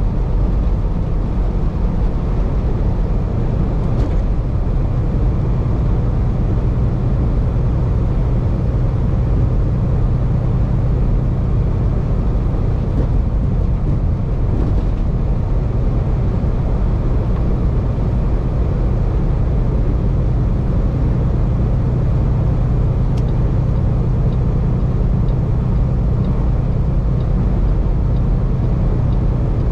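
Cab interior of a truck cruising at highway speed: steady engine drone and tyre road noise with a constant low hum.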